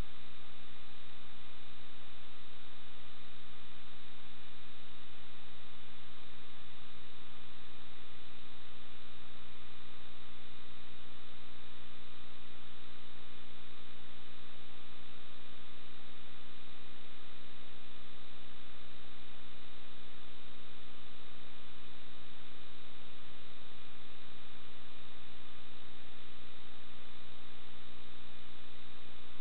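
Steady, unchanging hum and hiss with several fixed whining tones above it; no separate events.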